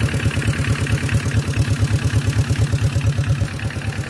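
Engine idling with a steady, even chug, about eight beats a second.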